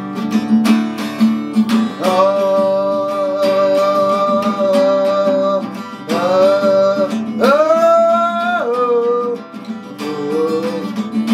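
Acoustic guitar strummed in a steady rhythm while a man sings long held notes, with a sharp upward bend in pitch about seven and a half seconds in.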